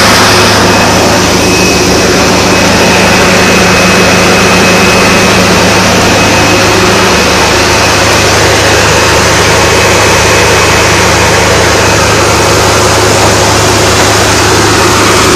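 Water-well drilling rig's heavy engine running steadily, with water gushing out of the drilled borehole.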